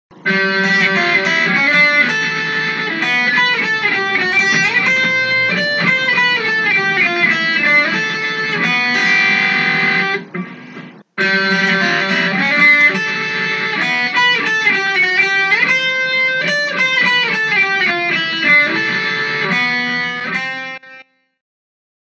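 Instrumental intro music led by guitar. It breaks off for about a second halfway through, starts again, and ends about a second before the end.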